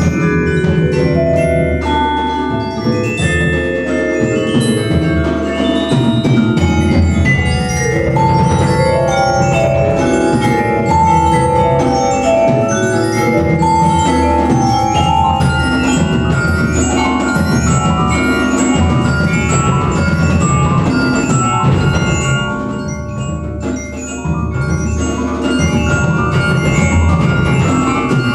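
Percussion quartet playing loud, busy music. Fast runs and struck chords on mallet keyboard instruments go over sharp strokes played with snare-drum sticks.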